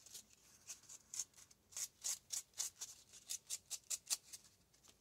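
Small sanding file rubbed in quick short strokes along the edge of a chipboard die-cut, a dry scratchy rasp of about three strokes a second, smoothing off the little nubs left from punching it out. The strokes stop shortly before the end.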